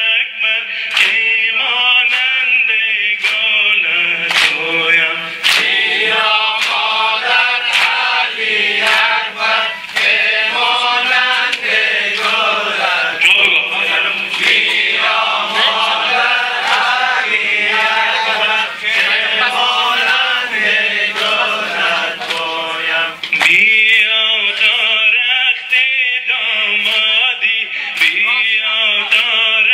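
Group of men chanting a Persian noha (Shia mourning lament) in unison, with the sharp slaps of sina zani chest-beating keeping a steady beat about once a second.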